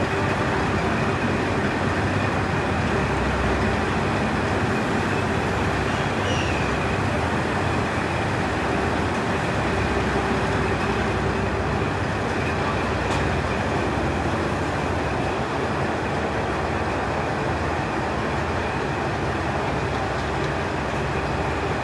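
Diesel railcar of the KiHa 40 series idling at a station platform: a steady engine rumble with a faint constant hum.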